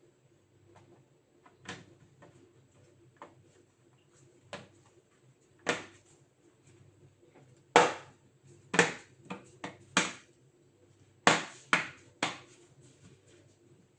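Sharp clicks and taps from laptop parts and tools being handled on a work surface: about a dozen irregular strikes, louder and closer together in the second half.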